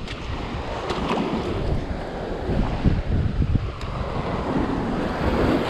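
Sea waves washing and breaking against a rocky shoreline, with wind buffeting the microphone in a low rumble.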